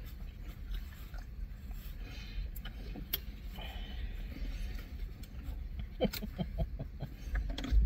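Close chewing and mouth noises from people eating sandwiches, with small clicks and plastic bottle handling, over a low steady rumble in a car cabin. A cluster of short smacking sounds comes about six seconds in, and a thump near the end.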